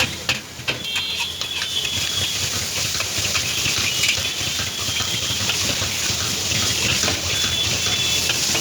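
Street-stall cooking: hot oil sizzling steadily, with scattered metal utensil clicks and short high squeaks.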